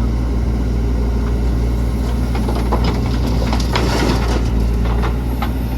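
JCB 3DX backhoe loader's diesel engine running steadily, with a run of clattering knocks and scrapes from about two to five seconds in as mud is dug and loaded.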